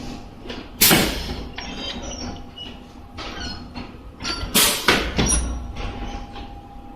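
High-frequency welding machine clunking: a sharp clunk about a second in and two more close together around four and a half to five seconds, over a steady machine hum.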